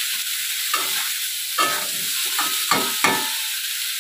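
Potato and eggplant pieces sizzling steadily in hot oil in a kadai while a metal spatula scrapes and turns them in several irregular strokes, the strongest in the second half: the vegetables being fried down (kosha) together.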